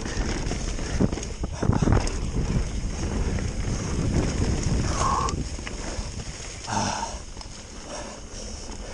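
Mountain bike rolling fast down a dirt forest trail: wind buffeting the microphone, tyres running over dirt and dry leaves, and the bike rattling and knocking over roots and bumps, with a cluster of knocks about one to two seconds in. The noise eases off near the end.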